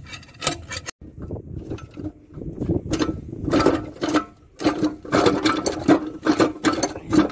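Metal parts of a stripped ZF truck gearbox clicking, clanking and rattling as they are handled: a quick, uneven run of sharp knocks.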